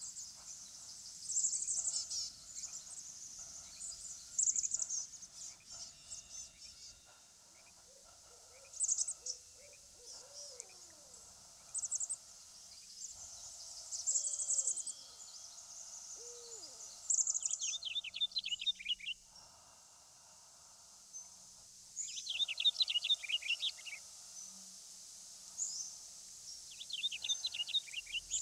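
Wild forest birds calling: short, high, thin song phrases repeated every couple of seconds, and from about two-thirds of the way through, quick rattling trills. Around the middle there are a few short, low, arched calls.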